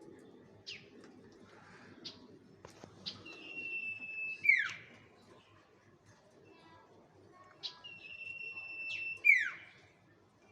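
Bird lure call (suara pikat) repeated twice, about five seconds apart. Each phrase is a few short falling chirps, then a held high whistle, ending in a loud, sharply falling note.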